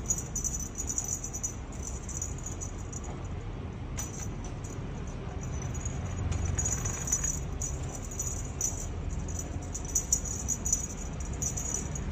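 Small bell on a feather-wand cat toy jingling in flickering runs as the wand is shaken for a kitten.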